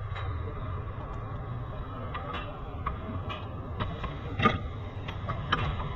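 Short metallic clicks and knocks as front suspension and drive axle parts are handled under the car, the loudest knock about four and a half seconds in, over a steady low workshop hum.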